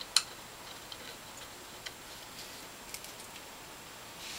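A few faint, sparse metal clicks, the clearest just after the start, as bolts are handled and threaded by hand into the aluminum reservoir top of a Norwalk juicer.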